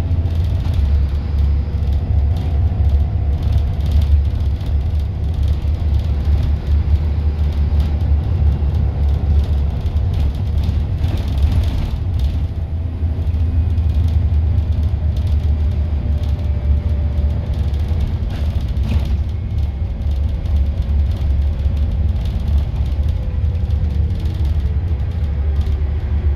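Scania N230UD double-decker bus heard from inside the passenger cabin: a steady, loud, low engine and road rumble, with a faint whine that falls in pitch near the end.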